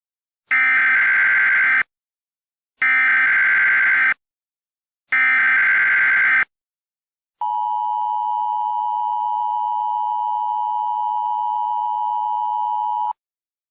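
Emergency Alert System SAME header: three identical bursts of warbling data tones, each about a second and a half long with a second's gap between them, then the steady EAS attention tone held for nearly six seconds before cutting off sharply. The header bursts and attention tone signal the start of an emergency alert, here a tornado warning.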